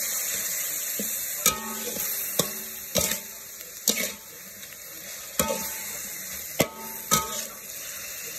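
Sliced pork sizzling in a steel wok while a metal spatula stirs and scrapes it, with about seven sharp clacks of the spatula on the wok, several leaving a brief metallic ring.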